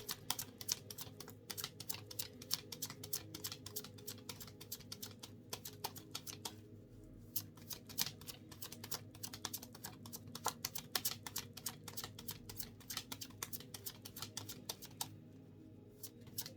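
A deck of oracle cards being shuffled by hand: a rapid run of light card clicks and slaps, pausing briefly twice, over a faint steady hum.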